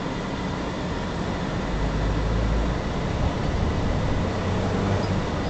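Car's engine and road noise heard inside the cabin while towing a caravan down a narrow lane, a steady low rumble that swells briefly about two seconds in.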